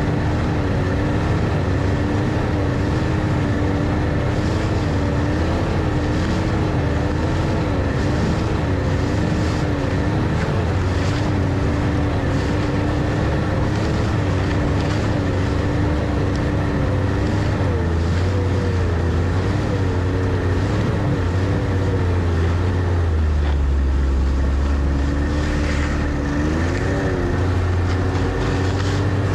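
Snowmobile engine running under way, a steady engine note that wavers and bends up and down a few times in the second half as the throttle changes.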